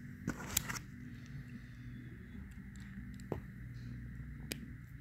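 A few sharp clicks and taps from a hand crimping tool and a small metal pin terminal being handled and set in the tool's jaws, the loudest about half a second in. A steady low hum runs underneath.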